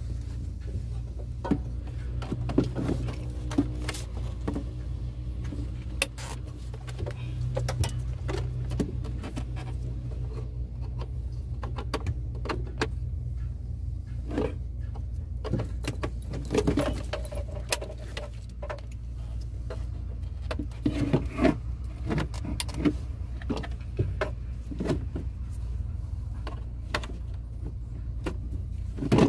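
Plastic wiring connectors and a truck's instrument cluster being handled and pushed into place: scattered clicks, taps and rattles, over a steady low rumble.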